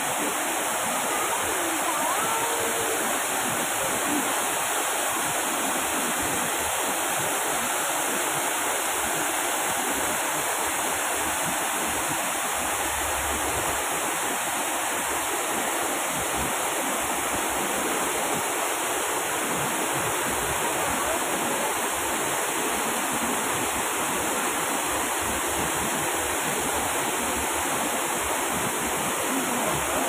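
Man-made rock waterfall, several falls pouring into a pond: a steady rush of falling and splashing water.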